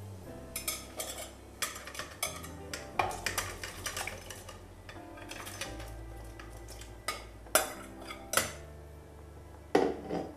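Spoon clinking and scraping against a glass bowl as diced raw potatoes are tipped into an enamel pot, in irregular knocks and clinks, with a ladle knocking in the pot near the end. Soft background music runs underneath.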